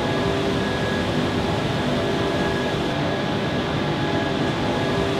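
Steady industrial drone of a brickworks' gas-fired tunnel kiln and its machinery, a broad rushing noise with a few steady hum tones running through it.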